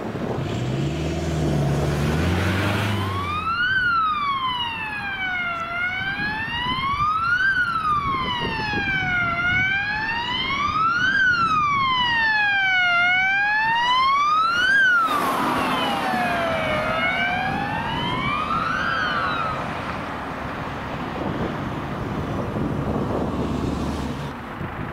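Ambulance siren on a slow wail, rising and falling about once every four seconds, as a Mercedes-Benz Sprinter ambulance drives past on an emergency run. Vehicle engine noise comes first. About fifteen seconds in it cuts to another wailing siren, which dies away into engine and road noise.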